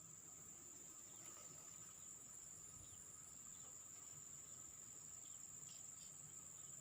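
Faint, steady high-pitched trill of insects, typical of crickets, held unbroken in otherwise near silence.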